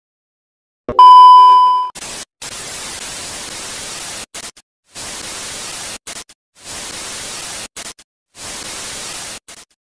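A 'no signal' TV sound effect. A loud, steady test-tone beep lasts about a second, then TV static hiss cuts out and back in abruptly several times.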